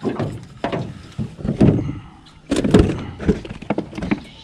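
A string of irregular knocks and thumps, the loudest cluster about halfway through: fishing gear being handled and bumped against a small boat.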